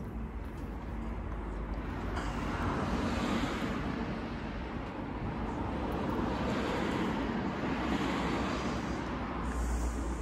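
Noise of a passing vehicle swelling and fading twice, over a steady low hum.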